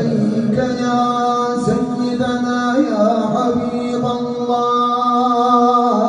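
A man's unaccompanied solo voice chanting a Turkish sela, the Islamic religious call, in makam Hüseyni: long held notes that move in small ornamented steps.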